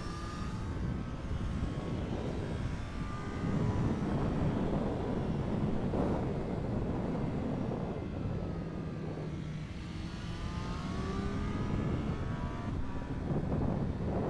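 Triumph Street Triple 765 RS inline-three engine revving up and easing off as the bike accelerates, over a heavy rush of wind noise. It gets louder about three and a half seconds in, drops back around the ten-second mark, and rises again near the end.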